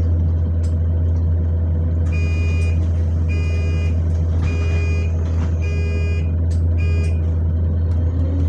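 Bus engine running with a loud, steady low drone, heard from inside the passenger saloon. About two seconds in, five evenly spaced electronic beeps sound over it, roughly one a second, and a few light clicks and rattles come through.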